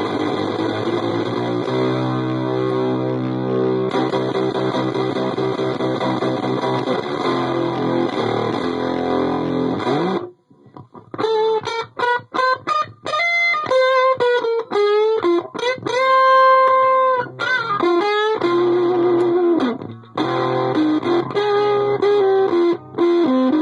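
Electric guitar played through a breadboard prototype fuzz pedal with its boost stage on, into a clean JCM-style amp. It strums fuzzy sustained chords for about ten seconds, then after a short break plays single-note lead lines with held and bent notes that sound a little horn-like. Chords come back near the end.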